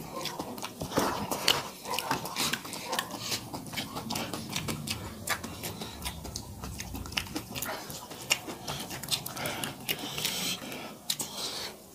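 Close-up eating sounds: wet chewing, lip smacks and mouth clicks from people eating rice with their hands, with the squelch of rice being mixed by hand. About ten seconds in, there is a brief splashing patch as dal is poured from a steel bowl onto the rice.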